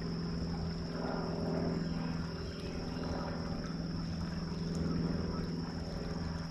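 A steady, low engine drone with an even hum of overtones, swelling and easing slightly in loudness, from an unseen motor.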